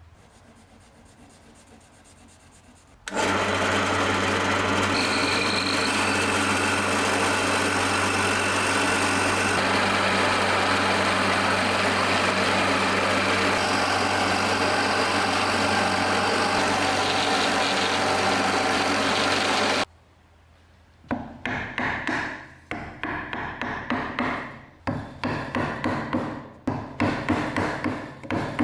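A power tool runs steadily for about 17 seconds with a constant tone, then switches off abruptly. After a short pause, irregular rubbing or scraping strokes follow, roughly one or two a second.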